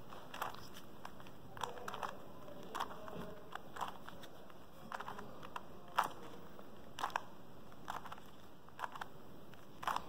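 Stickerless plastic 3x3 Rubik's cube having its faces turned through a solving algorithm: a dozen or so short plastic clicks and clacks, irregularly spaced and some in quick pairs.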